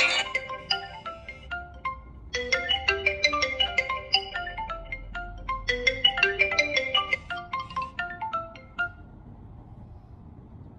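Smartphone incoming-call ringtone: a melody of quick marimba-like notes, with a brief gap about two seconds in, stopping near the end.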